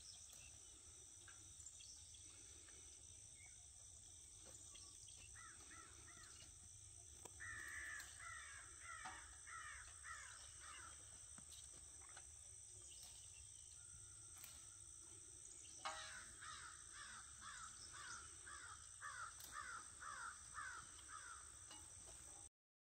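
Faint outdoor ambience: a bird calling in three bouts of short, falling notes, about two a second, over a steady high insect drone. A single sharp tap comes about two-thirds of the way through.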